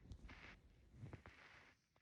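Faint sounds of a sleeping woman close to the microphone: a soft hiss lasting about a second and a half, with a few small clicks and low thumps.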